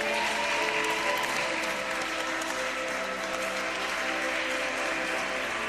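Audience applauding over music with long held notes.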